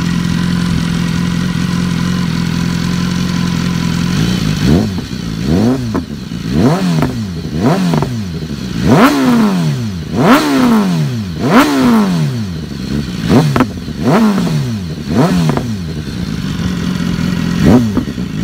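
2015 BMW S1000RR inline-four, warm, idling steadily through an Arrow titanium slip-on exhaust with its baffle removed. About four seconds in it is revved in a string of about a dozen sharp throttle blips, each rising and falling in pitch, roughly one a second.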